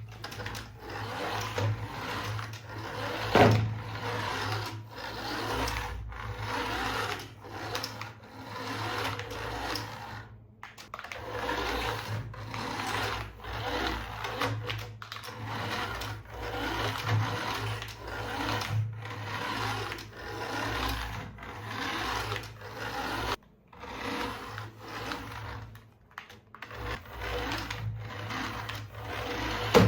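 Small electric motor and gears of a remote-control toy whirring in short runs that start and stop about once a second, with a sharp knock about three and a half seconds in.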